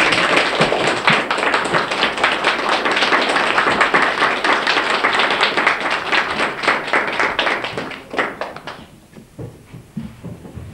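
A small crowd applauding, dense and steady clapping that thins out to a few last claps about eight or nine seconds in.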